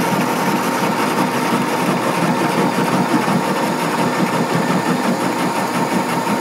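Metal lathe running and turning a very hard metal shaft: a steady machine hum with a fine, rapid rattle and a thin, steady high whine.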